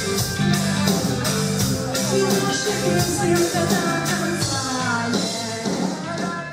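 A live rock band playing, with drums keeping a steady beat under bass and sustained instrument lines.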